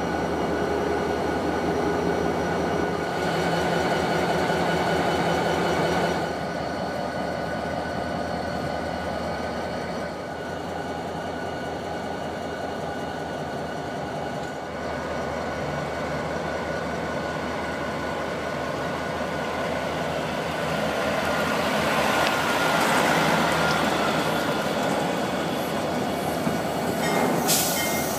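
Diesel locomotive engines running: a steady hum with a fine, rapid throb and several steady tones over it. Near the end comes a brief, sharp burst of noise.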